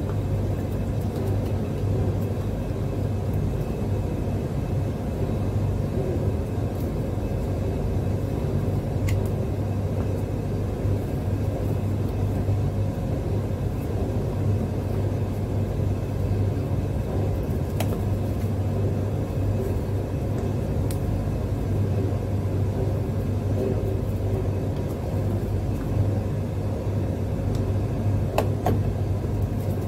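A steady low hum runs throughout, with a few faint clicks as a plastic junction box and its cable gland are handled.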